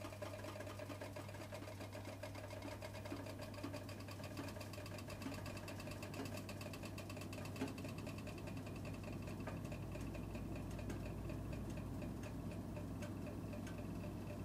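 Dainichi kerosene fan heater running: a steady low hum with a fast, even ticking that grows more distinct about halfway through.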